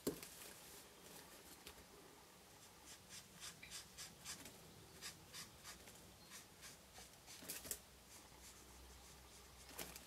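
Faint, short strokes and taps of a Stampin' Blends alcohol marker nib on cardstock as a stamped branch is coloured, a few a second through the middle.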